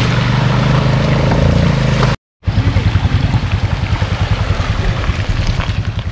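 Mountain bike ridden along a wet, muddy trail: a steady rush of wind buffeting the camera microphone over rumbling, bumping tyre noise. The sound cuts out for a moment about two seconds in.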